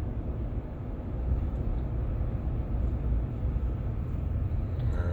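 Steady low road and drivetrain rumble inside the cab of a 2019 Ram 1500 pickup as it rolls along slowly.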